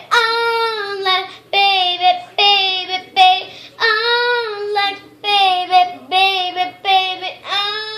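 A young girl singing solo and unaccompanied, loudly, in short held phrases with brief breaths between them.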